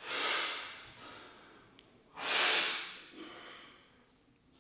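Heavy breathing of a bodybuilder straining to hold a pose: two forceful exhalations, one at the start and a louder one about two seconds in.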